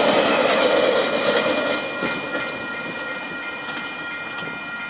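Loaded log wagons of a freight train rolling past on the rails, with a steady rumble and a high, steady whine from the wheels on the rails. It grows quieter from about two seconds in as the train draws away.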